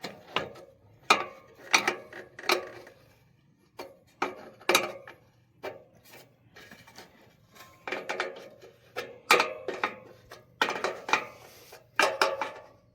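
Irregular metal clanks and knocks, some in quick runs of two or three, from chainsaw-mill hardware being handled and set against wood.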